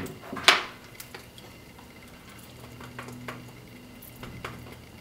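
Light clicks and knocks of a golf buggy's electric motor and gearbox being handled and fitted together by hand, with one louder brief scrape about half a second in.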